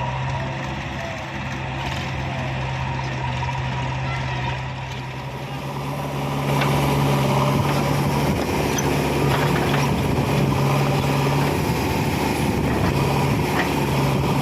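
Heavy diesel engine running steadily, growing louder about six seconds in as it is revved or put under load.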